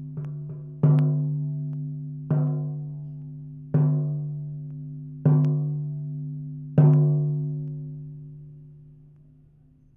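Low-pitched drum struck in a slow, steady beat about every one and a half seconds, each stroke ringing on and fading. Two soft taps come near the start, and the last stroke is left to die away.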